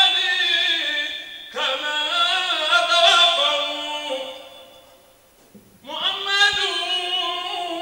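A man singing an unaccompanied Islamic devotional chant into a microphone, in long held, wavering phrases, with a short pause a little past halfway.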